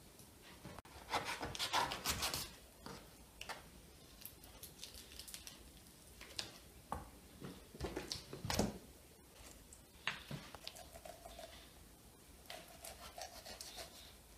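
Knife cutting and scraping at a raw whole chicken on a wooden cutting board, with irregular scrapes, knocks and rubbing as the carcass is turned and trimmed; the loudest stretches come about a second in and again around eight seconds in.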